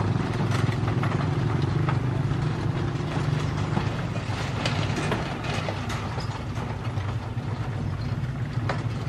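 Small vehicle engines running at low speed as a Suzuki pickup truck and a motorcycle towing a kiddie-ride cart cross a railway line, a steady low hum with a few light knocks.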